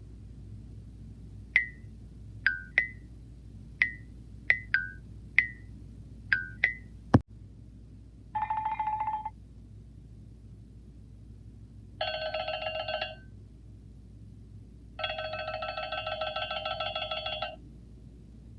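Cartoon sound effects: a run of about ten quick, sharp clicks, each with a short pinging tone, then a loud snap, a brief buzz, and an old-style telephone bell ringing twice, first briefly and then longer.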